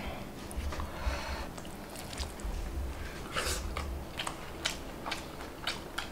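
People eating chicken chap and biryani rice with their hands: chewing and mouth noises, with scattered short clicks and smacks.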